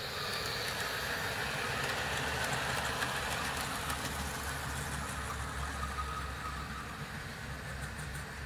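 Model railway goods train of vans running past on the track: a steady rumble of wheels and motor that builds and then eases as it passes, with a few light ticks from the rails.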